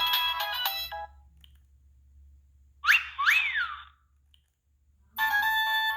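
Siemens C72 mobile phone playing its preloaded polyphonic ringtones through its small speaker. A melody stops about a second in, two quick swooping tones that rise and fall come in the middle, and a new melody starts near the end.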